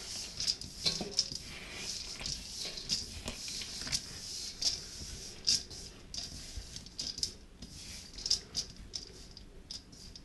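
A hand tossing slivered almonds and raisins with flour in a large stainless steel mixing bowl: an irregular dry rattling and pattering of the nuts against the steel, with frequent sharper clicks.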